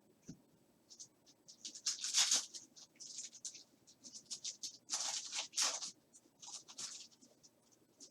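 Trading cards sliding and rubbing against one another as a stack is flipped through by hand: a run of short scraping swishes, loudest about two seconds in and again about five seconds in.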